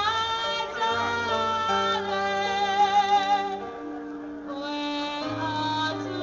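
Live jazz quartet playing: a female voice and a saxophone hold long notes, one with vibrato about halfway through, over keyboard and double bass.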